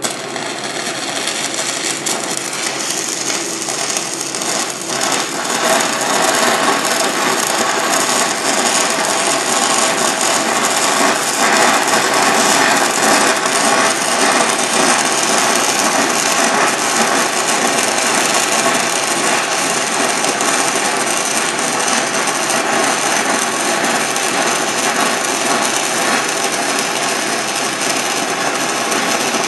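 Stick-welding (SMAW) arc from a 1/8-inch E6010 electrode at about 79 amps, running the open root pass on a steel pipe joint: a steady, dense crackling sizzle. It starts with the arc strike and grows louder over the first several seconds, then holds.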